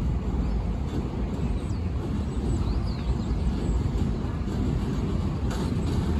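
An R160A subway train approaching on elevated track, its wheels on the rails making a steady low rumble that builds slightly. A few faint clicks come near the end.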